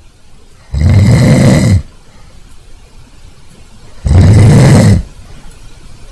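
A person snoring loudly: two rough snores, each about a second long, about three seconds apart.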